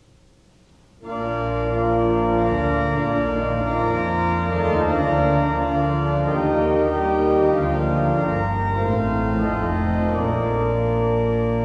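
Church organ starting about a second in, playing slow sustained chords over a deep pedal bass.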